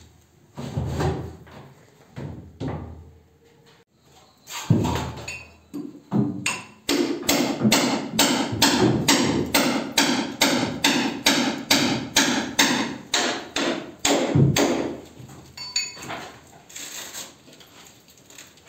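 Hammering: a few scattered knocks and thumps, then about seven seconds of quick, even hammer blows at about three a second, which stop about three-quarters of the way through.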